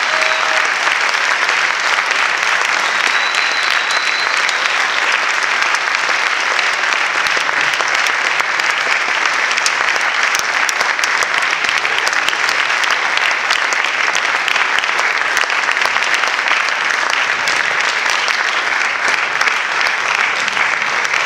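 Audience applauding, a dense, steady clapping that holds at the same level throughout.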